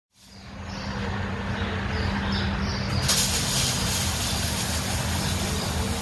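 A vehicle engine running steadily, a low hum under a loud rushing noise that grows brighter about three seconds in.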